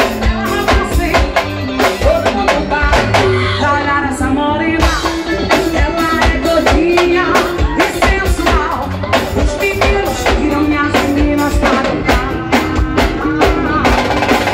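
Forró band music with a steady drum beat under a melodic lead line and bass, with no sung words.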